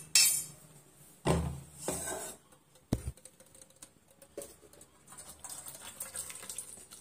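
Metal cooking vessels handled: a pressure cooker and a perforated steel steamer plate knock and clatter a few times, loudest at the start. Then thick tamarind pulp is poured through the perforated plate with a faint wet splatter near the end.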